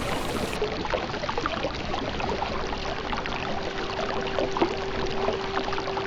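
Stones clattering and crunching under an FMS FJ40 RC crawler's tyres as it drives over rocks. A steady electric-motor whine joins about two seconds in.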